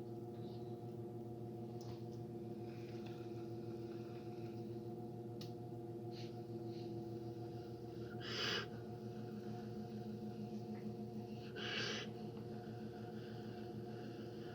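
Two short breaths blown onto a smouldering char-cloth ember in a jute tinder bundle, each a brief puff of hiss about three seconds apart, coaxing it to flame. A steady hum of several tones runs underneath, with a few faint ticks.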